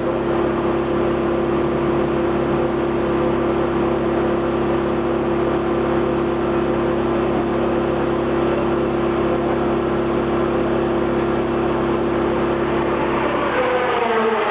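McLaren MP4-12C GT3's twin-turbo V8 running at a steady speed, holding one even pitch. Near the end a higher tone glides down in pitch.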